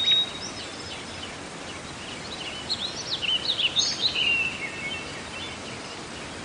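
Birds chirping over a steady outdoor background hiss, with a quick run of short chirps in the middle.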